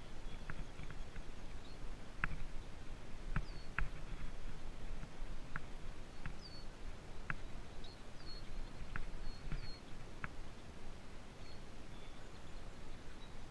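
Bicycle rolling over a bumpy mown grass track: a steady rushing noise with scattered irregular clicks and knocks as it bumps along, and a few short high bird chirps in the middle.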